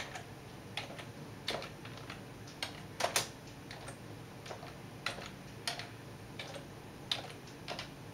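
Slow keystrokes on a computer keyboard, each key pressed one at a time with a hand-held typing wand: separate clicks at uneven spacing, roughly one or two a second, the loudest about three seconds in.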